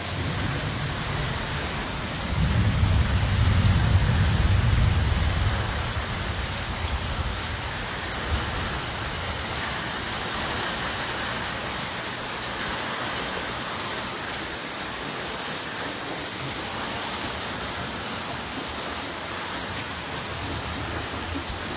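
Heavy, steady rain, with runoff pouring off the roof edge into a rain barrel. A low rumble of thunder comes in about two seconds in and dies away over about four seconds.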